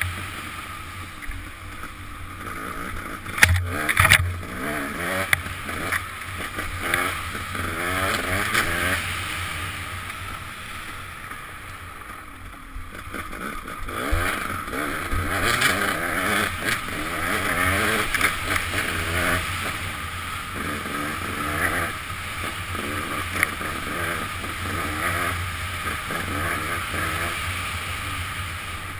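KTM dirt bike engine revving up and down again and again under throttle while being ridden, heard from a helmet-mounted camera with wind noise. There are a couple of sharp knocks about three and four seconds in.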